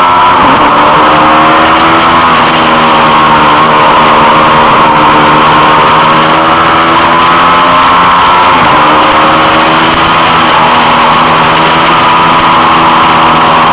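Honda CB500 parallel-twin engine running hard at high revs, heard from onboard the race bike with heavy wind rush over it. The revs dip briefly about half a second in and again about two-thirds of the way through, otherwise holding fairly steady.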